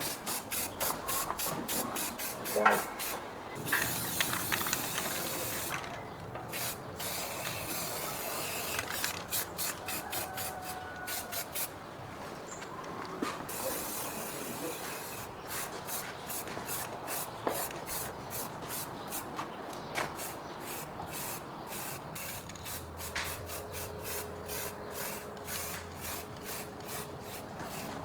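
Paint spray gun hissing in many short, quickly repeated bursts, with one longer continuous spray about four seconds in.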